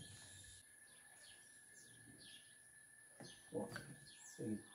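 Quiet outdoor ambience with small birds chirping repeatedly in short falling notes. Brief faint voices come in about three seconds in.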